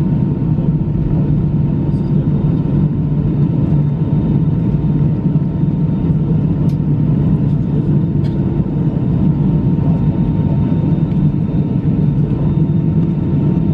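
Steady low cabin rumble inside an Airbus A319 on the ground before takeoff, engines at idle, with a faint steady whine over it.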